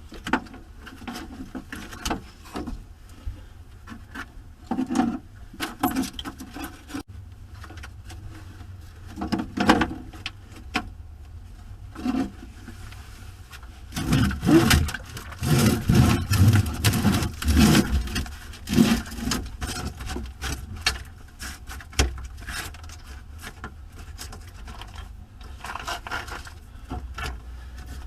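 Scraping, rubbing and knocking of hand work on 6-volt coach batteries and their cables being worked loose and pulled from a motorhome battery bay, with a spell of heavier scraping and thuds about halfway through.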